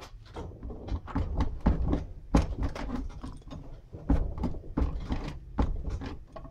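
Metal clicks and knocks of a universal valve spring compressor's loose sliding bar and fittings shifting on a cylinder head as the tool is handled, in an irregular string with the strongest knocks in the second half.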